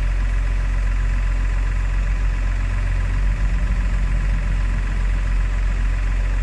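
An off-road 4x4's engine idling steadily, its low rumble briefly pulsing a little past halfway.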